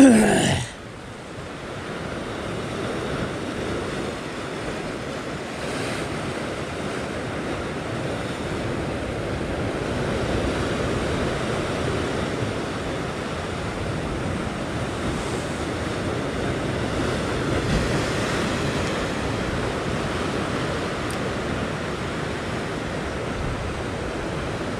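Ocean surf surging and breaking against a rock ledge in a steady wash, rising and falling in slow swells, with some wind on the microphone. A brief loud sound comes right at the start.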